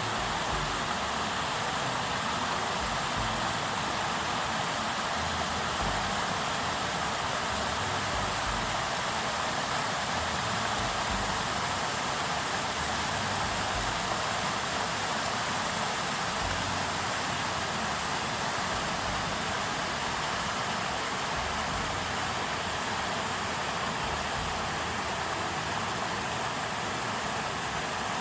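River water rushing steadily, an even unbroken noise with no change in level.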